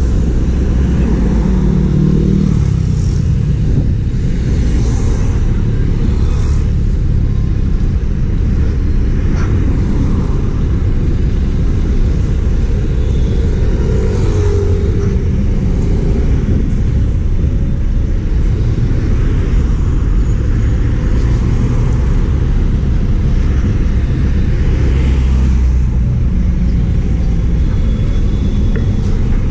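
Road traffic passing close by: a steady low rumble of engines and tyres, with several vehicles swelling up and going past one after another.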